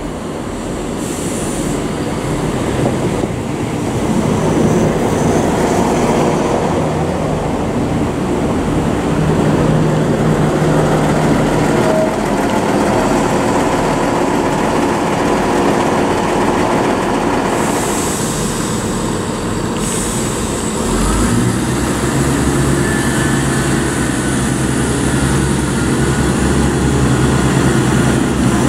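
ScotRail Class 170 Turbostar diesel multiple unit running into the platform and coming to a stand, its underfloor diesel engines running steadily. There are short hisses of air about two-thirds of the way through. Soon after, the engine note deepens and grows louder as the unit readies to pull away.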